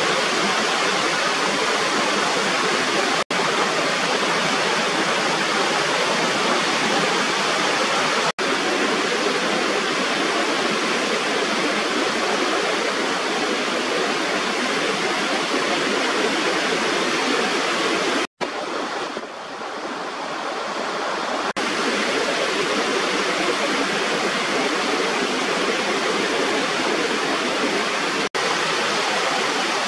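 Steady rush of water pouring over a small weir waterfall. It drops out for an instant four times, and for about three seconds two-thirds of the way through it is quieter and duller.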